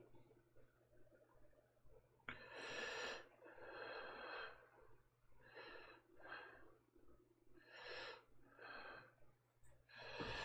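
Faint breathing, heard as three pairs of breaths in and out a couple of seconds apart, over a low steady hum.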